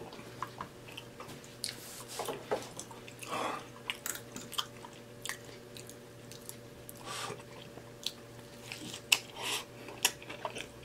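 A man chewing mouthfuls of syrupy banana nut pancakes close to the microphone, with scattered smacks and clicks of the mouth.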